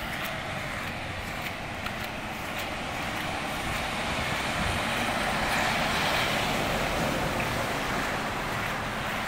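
A tractor-trailer truck passing on a wet road, the hiss of its tyres on the wet asphalt swelling to a peak a little past the middle and then easing off.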